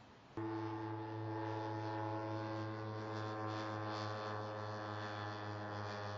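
Engine of a British Army Watchkeeper unmanned aerial vehicle in flight, a steady whining drone of unchanging pitch that cuts in sharply about half a second in.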